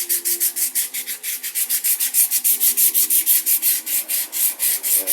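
Sandpaper rubbed by hand over the wood of a rocking chair in fast, even back-and-forth strokes, about eight a second.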